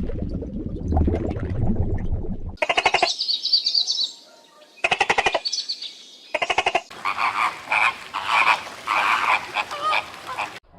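Frogs croaking: three short, fast-pulsed rattling calls, then several frogs calling together over the last few seconds. A low rumbling noise comes before the calls.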